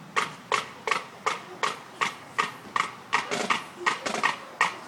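A steady beat of sharp clicks or knocks, a little under three a second.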